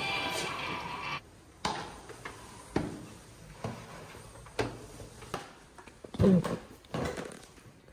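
Footsteps on a staircase: single knocks roughly once a second, with one short, louder pitched sound near the end. In the first second, music with a voice from the exhibit cuts off abruptly.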